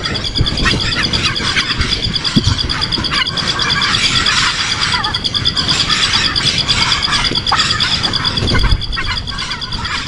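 Birds chirping and cheeping in many short calls over a steady, evenly pulsing high trill, with a few low knocks.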